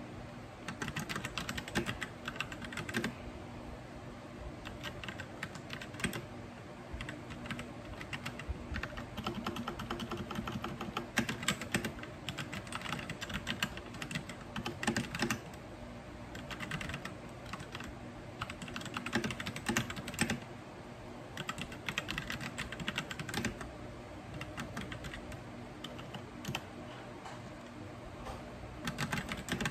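Typing on a white compact mechanical keyboard: quick runs of keystroke clacks, broken by short pauses.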